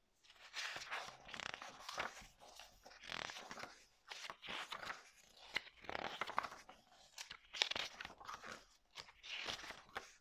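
Pages of a softcover book being opened and flipped by hand: repeated dry paper rustles and slides, one after another about every second, beginning about half a second in.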